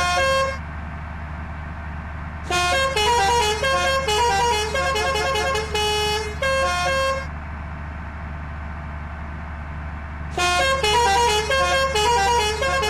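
Telolet musical bus horn tooting short multi-note melodies in three bursts: briefly at the start, for about five seconds from two and a half seconds in, and again from about ten seconds in. A steady low hum runs underneath.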